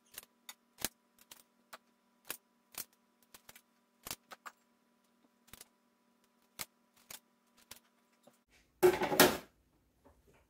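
Kitchen scissors snipping the toes off raw chicken feet: sharp, irregular clicks of the blades closing, one or two a second. Near the end comes a louder, brief clatter lasting under a second.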